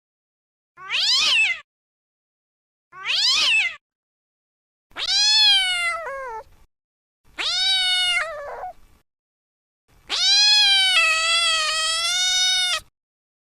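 Domestic cat meowing five times, each call separated by silence. The first two are short meows falling in pitch, then come two longer meows, and the last is a drawn-out meow of nearly three seconds.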